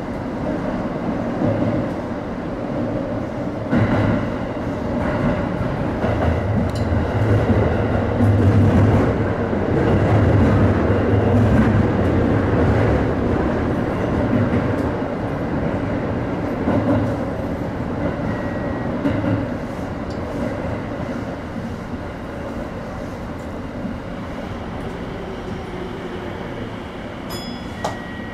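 Tsukuba Express TX-2000 series electric train heard from inside the front car, with wheels-on-rail running noise as it slows into its terminal stop. The noise is loudest about ten seconds in and eases off after about seventeen seconds as the train comes to a stop, with a few brief high squeals near the stop.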